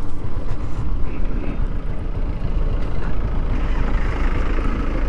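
Steady wind rumble on the camera's microphone and road noise from a motorcycle riding, a Yamaha R15 V2 single-cylinder bike.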